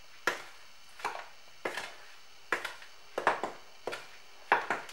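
A spoon stirring dry flour and semolina in a mixing bowl. It makes a string of short, sharp scrapes and knocks against the bowl, several a second at times and roughly one a second at others.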